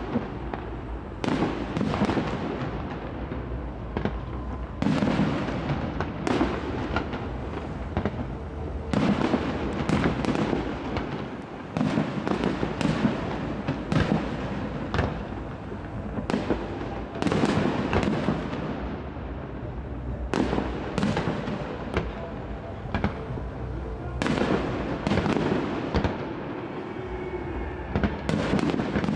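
Aerial fireworks display: shells bursting in a quick, irregular run of sharp bangs, one every second or two, with crackle and rumble between them.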